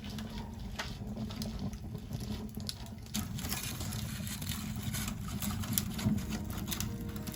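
Wood campfire burning, with frequent sharp crackles and pops over a steady low rumble of the flames.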